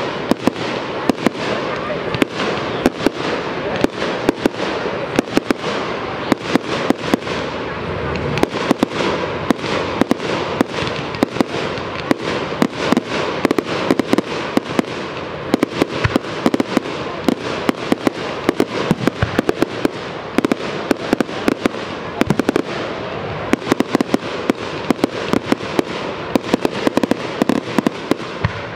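Aerial fireworks display: a dense run of sharp pops and crackles from bursting shells, many a second.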